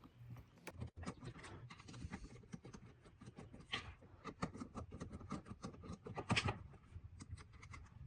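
Small irregular clicks and scrapes of a Cobratec OTF automatic knife being handled and taken apart, metal and plastic parts ticking against each other.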